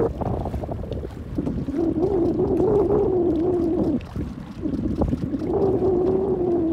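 Small boat's outboard motor running with a steady hum, with a low rush of wind and water beneath it. The hum dips out briefly about four seconds in, then comes back.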